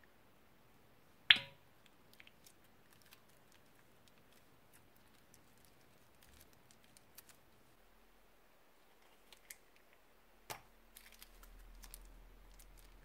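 Small clear plastic bag being pulled open and squeezed by hand: one loud sharp snap about a second in, a second sharper click later, and scattered faint plastic clicks and crinkles between.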